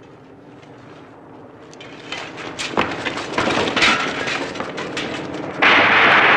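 A low-flying biplane coming in, a noisy sound that builds from about two seconds in, with scattered sharp cracks through it. Near the end it turns suddenly much louder as the plane comes overhead.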